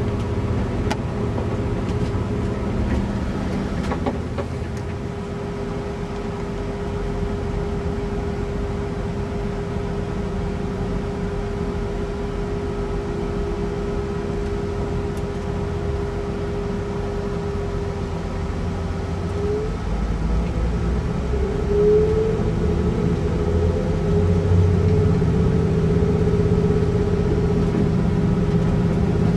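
Cabin sound of a Class 175 Coradia diesel multiple unit on the move: the underfloor diesel engine and running gear drone steadily with a held whine. About two-thirds of the way through the whine drops away, then a rising whine comes in and the sound grows louder as the train powers up again.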